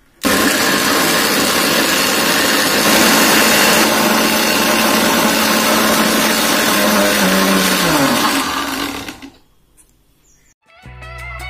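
Electric mixer grinder blending cucumber and curd in its steel jar: the motor starts abruptly and runs loud and steady for about nine seconds, then is switched off and spins down with a falling hum.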